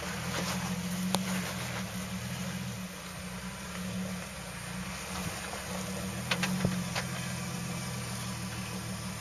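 Jeep Wrangler Rubicon's 4.0-litre straight-six engine running steadily at low revs as it crawls over rock, with a sharp knock about a second in and a few more around two-thirds of the way through.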